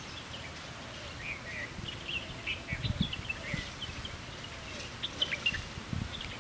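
Small birds chirping in short, high calls again and again, with a few low thumps about halfway through and near the end.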